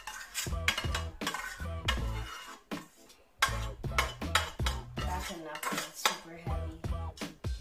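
Metal utensil scraping and clinking inside a stainless steel pot as wet sorrel is scooped out into a metal strainer: repeated irregular clanks and scrapes with a metallic ring.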